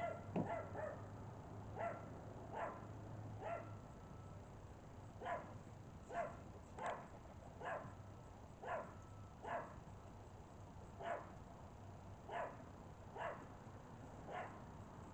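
A dog barking repeatedly and faintly, about one bark a second in short runs, over a low steady hum.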